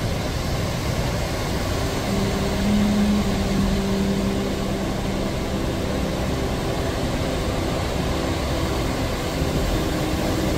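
Hurricane-force wind blowing steadily, a dense rushing noise with driving rain and surf in it, and a low steady tone sitting under it from about two seconds in.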